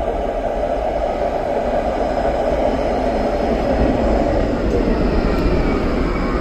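Electric tram approaching and drawing up alongside the platform, its wheels rolling on the rails in a steady rumble that grows louder as it comes close.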